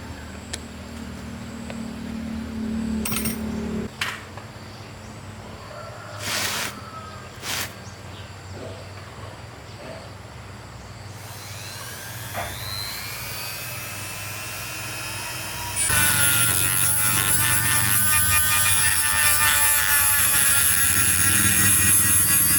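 Workshop sounds: a few short knocks over a low hum, then a power tool spinning up with a rising whine from about halfway through and running loudly from about two-thirds in.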